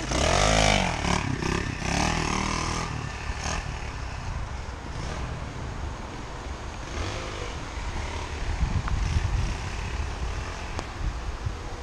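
Pit bike engine revving hard as the bike pulls away, its note rising and falling through the gears for the first few seconds, then fading into the distance to a faint drone.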